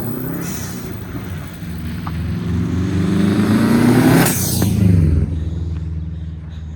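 A car engine revving hard as it approaches and speeds past, rising in pitch to a loud peak about four seconds in and then dropping away, over a steady low rumble.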